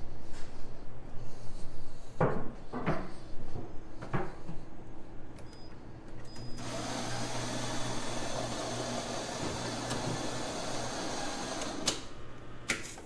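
A few knocks and clicks of handling, then a coffee machine runs with a steady noise for about five seconds and cuts off sharply, followed by two more clicks.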